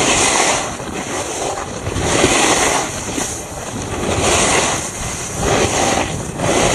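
Wind rushing over an action camera's microphone, with the hiss and scrape of a rider sliding down slushy snow, swelling and fading every second or two as the turns come.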